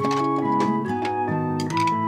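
Background music: a keyboard melody of held notes over sustained chords, the notes changing several times a second.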